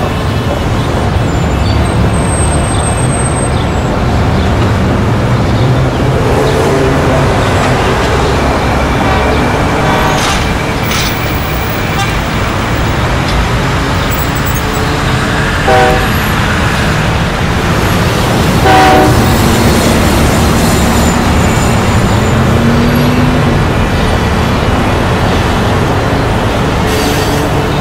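Street traffic noise running steadily, with a vehicle horn honking twice past the middle.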